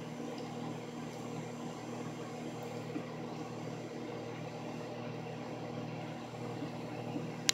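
Microwave oven running with a steady hum, and no popping from the popcorn kernels inside; a single sharp click near the end.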